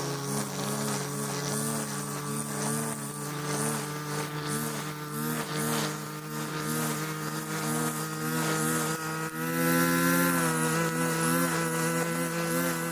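Grass-trimmer (brush cutter) motor running steadily, spinning its nylon trimmer line. It speeds up briefly and gets louder about three quarters of the way through.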